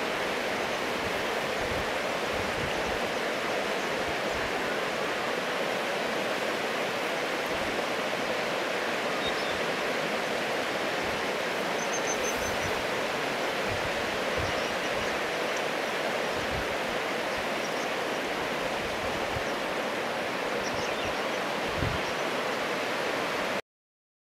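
Fast, shallow river rushing over a stony bed: a steady rush of water that cuts off abruptly near the end.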